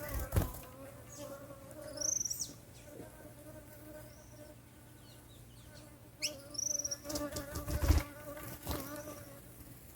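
An insect buzzing steadily, broken by short high chirps from saffron finches, once about two seconds in and again around six to seven seconds. Two dull knocks, one near the start and one at about eight seconds, are the loudest sounds.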